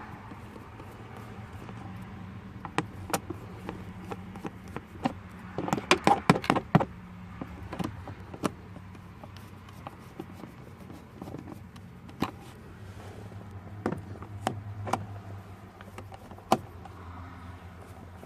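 Scattered clicks and knocks of a screwdriver and plastic steering column trim being worked on, with a quick run of clicks about six seconds in, over a low steady hum.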